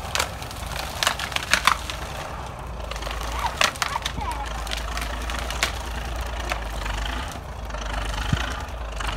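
Dead spruce tree cracking and splintering in a string of sharp snaps as it is pulled over, its branches crushing. Underneath runs the steady low rumble of a D9 Caterpillar bulldozer's diesel engine.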